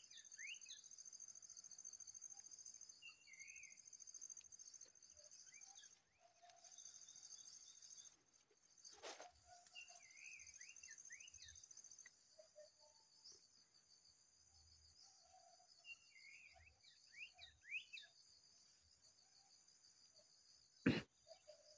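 Faint tropical ambience: a steady high-pitched insect trill with short bird chirps now and then. A sharp click near the end is the loudest sound.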